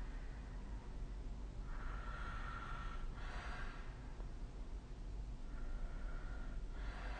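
A sleeping person snoring, two breaths about four seconds apart. Each is a steady, fairly high snoring tone lasting about a second, followed straight away by a short airy breath. A steady low hum runs underneath.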